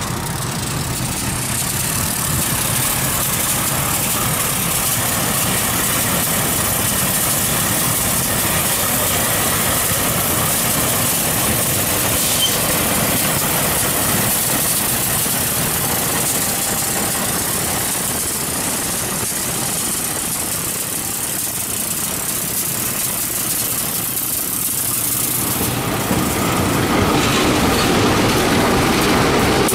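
Diesel locomotives running, a steady noise with a lot of hiss. Near the end a GE CC203 diesel-electric locomotive's engine comes in louder and closer.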